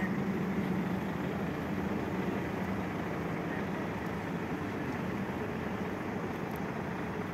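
Crane truck's engine running steadily to drive its hydraulic knuckle-boom crane while the crane holds a cabin of about 3 tons aloft. A low hum is a little louder in the first second or so, then eases.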